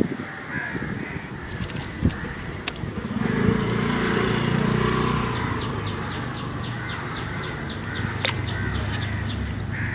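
Crows cawing over a low, steady rumble, with a rapid run of faint ticks, about five a second, in the second half.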